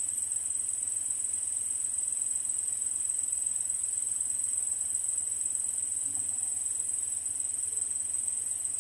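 A steady, high-pitched insect trill, like crickets, that goes on without a break.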